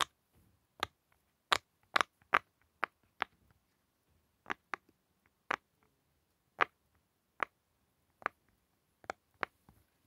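Silicone pop-it fidget toy's bubbles being pressed by a finger, each giving a sharp little pop: about fifteen pops at an uneven pace, some in quick pairs.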